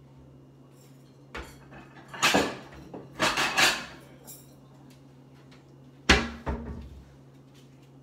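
Kitchen handling sounds while serving food: a few short scrapes and rustles in the first half, then a sharp knock about six seconds in followed by a lighter one.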